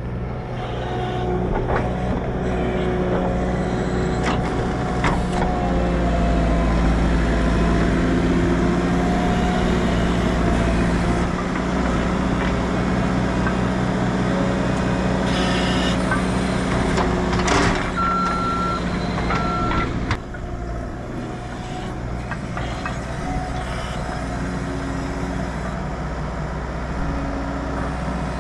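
Tractor engine running steadily under load while pulling a working hay baler. Two short electronic beeps come in about two-thirds of the way through.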